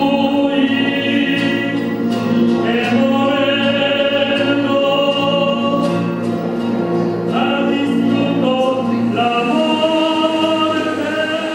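Choral music: voices holding long sustained chords that shift to a new chord every few seconds.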